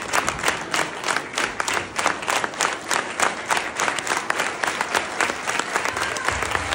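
Audience applauding, the claps largely falling into a steady rhythm of about four a second, loosening toward the end.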